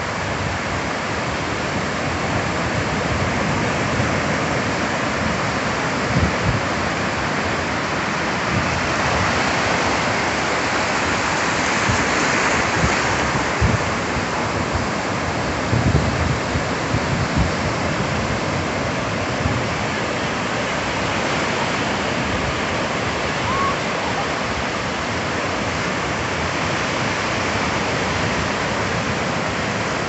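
Ocean surf on a sandy beach: waves breaking offshore and foam washing up the sand as a steady rush, swelling about halfway through. A few short low thumps are heard along with it.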